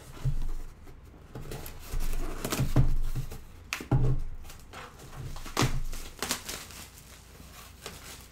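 Packaging crinkling and rustling as a bagged 3D-printer filament spool is unpacked by hand, with several short knocks and clicks of the spool and box being handled.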